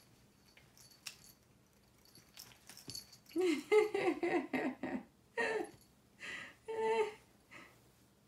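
A voice giving a quick run of short, pitched, bending sounds, about a dozen in four seconds, starting about three seconds in; faint light rattles before it.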